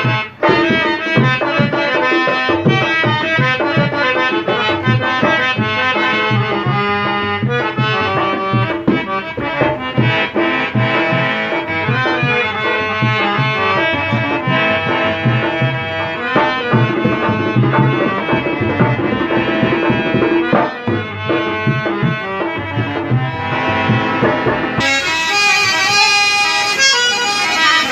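Harmonium playing a melody over a hand-played dholak beating a steady rhythm.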